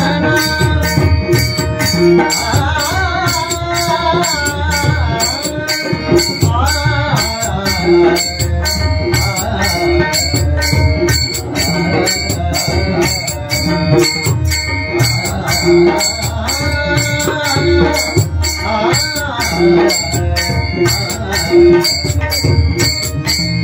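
Marathi devotional bhajan music: a melody with held drone tones, carried over pakhawaj and tabla drumming. High metallic strokes keep a steady, even beat throughout.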